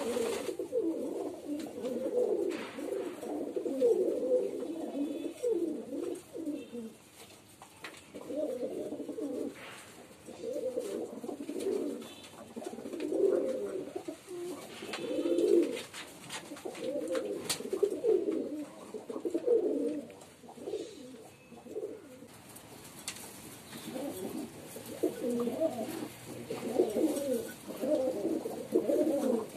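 Domestic pigeons cooing in overlapping bouts, with short lulls about 7 and 21 seconds in.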